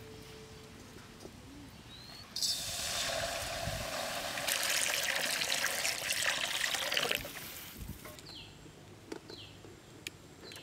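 Water poured in a steady stream into a large aluminium pan, starting about two seconds in and stopping about seven seconds in.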